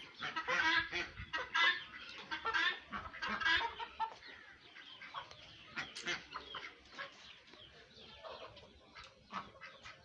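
A flock of guinea fowl and chickens calling, with quick, repeated cackling notes. The calls are thick for the first few seconds, then thin out to scattered calls.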